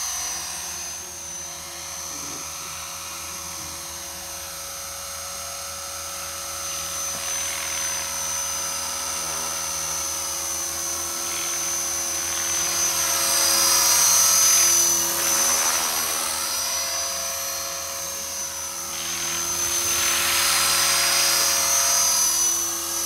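Electric HK450 RC helicopter with a Turnigy 2836-3700 brushless motor: a steady high-pitched whine from the motor and drivetrain with the whir of the rotor blades. It swells louder as the helicopter comes close, about 14 seconds in and again near the end.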